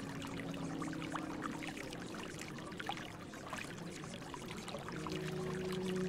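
Recorded running, trickling water, the masking layer of a subliminal audio track, with soft sustained low tones underneath; a new, louder pair of tones comes in about five seconds in.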